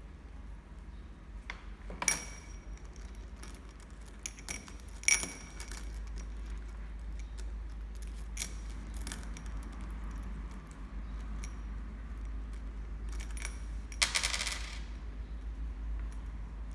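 Coins in a small glass bowl clinking against each other and the glass as a sun conure rummages through them with its beak. The clinks come singly and scattered, the sharpest about five seconds in, with a longer run of jingling near the end.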